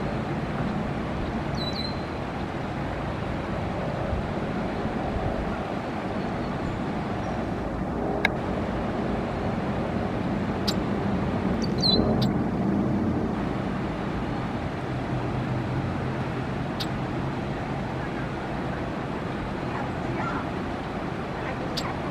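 Steady low rumble of distant road traffic, with a few faint short clicks and chirps scattered through it.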